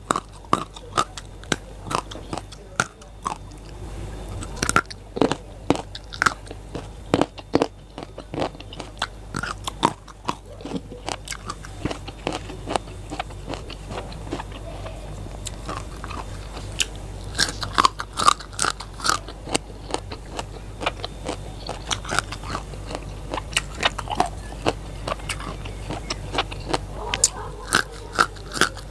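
Close-up crisp crunching and chewing of raw lalapan vegetables: many sharp, irregular crunches, several a second.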